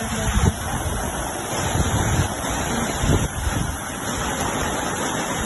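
Steady rushing of a muddy flash flood pouring down a street in heavy rain, with wind gusting on the microphone.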